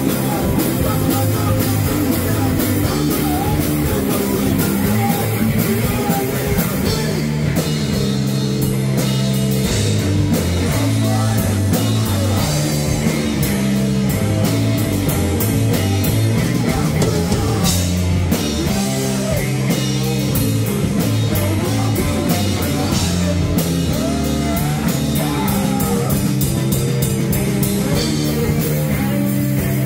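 Live rock band playing loudly: electric guitar through Marshall amplifiers and a drum kit with crashing cymbals, with a vocalist singing into a microphone.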